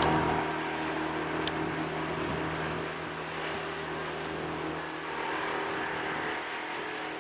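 Steady mechanical hum of a running motor: low constant tones over an even rushing noise, the lowest tones fading about five seconds in.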